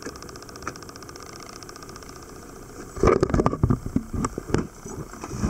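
Dive boat's engine idling steadily, then from about three seconds in a loud run of knocks, clatter and splashing as a scuba diver in full gear strides off the side of the boat into the sea.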